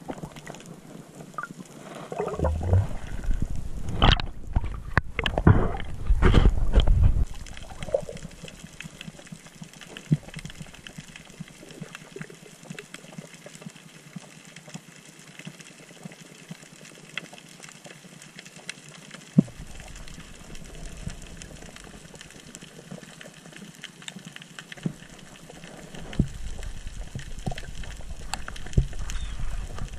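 Underwater sound through a GoPro housing on a diving spearfisher: water rushing and sloshing against the camera. The rushing comes in strong surges about two to seven seconds in, settles into a quieter wash with scattered faint clicks, then swells again near the end.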